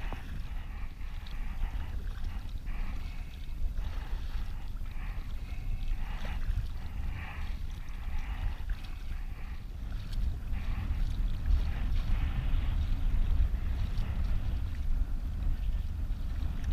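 Kayak paddle strokes splashing and water sloshing against the hull, a dip every second or so, over a steady low rumble of wind on the microphone.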